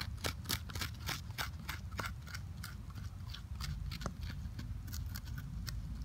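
A piece of flint scraping charred wood and charcoal out of a burn bowl hollowed into a hardwood stump: a quick, irregular run of small scratchy, crunching clicks, about four a second.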